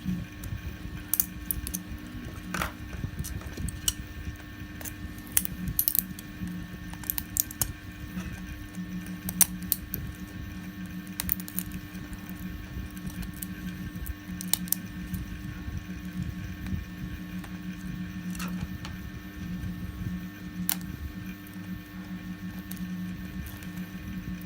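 Scattered sharp clicks and snaps of pliers and cutters breaking support material off 3D-printed plastic parts, irregular and unevenly spaced, over a steady low hum.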